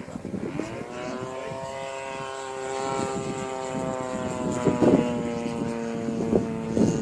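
Radio-controlled model airplane's engine and propeller running, its pitch rising over the first second as the throttle comes up, then holding a steady note. A couple of short thumps come about five seconds in and near the end.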